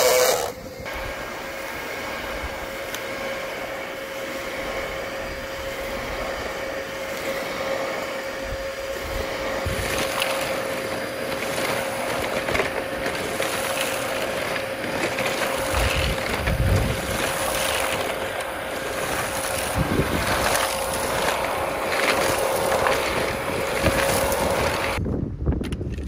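Dyson DC33 upright vacuum cleaner, with its Panasonic motor, running with a steady high whine, starting with a loud burst. From about ten seconds in, dirt and grit are being sucked up and add a gritty, rattling noise. The whine cuts off shortly before the end.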